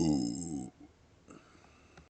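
A single long belly burp, voiced and shaped as a vowel, with a wavering pitch; it stops after about two-thirds of a second.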